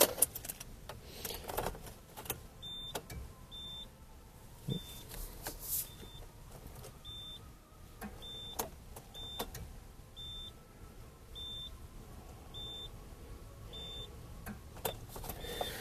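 Short, high electronic warning beeps from a Subaru SVX, repeating roughly once a second, with scattered light clicks. The clicks are typical of the fuel pump relay switching on and off as the ignition is cycled; the pump itself gives no fuel and has failed.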